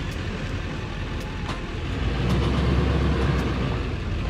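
GMC pickup's diesel engine running under load as it tows a travel trailer off a dirt campsite, with a low rumble that grows louder about two seconds in.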